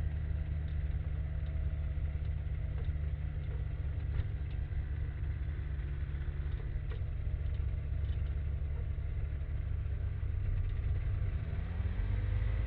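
Rotax 503 two-stroke twin engine of a Beaver RX 550 ultralight running at low taxi power, propeller turning. About 11 seconds in the engine speeds up and holds at a slightly higher pitch.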